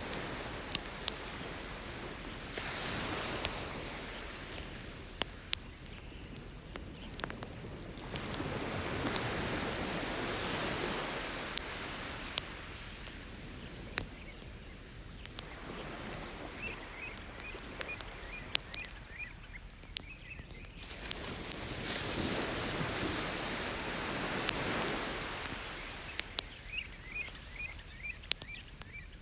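Ocean waves washing in and drawing back in slow swells, with a beach bonfire crackling and popping in many sharp clicks over them. Twice in the second half a run of quick high chirps comes in.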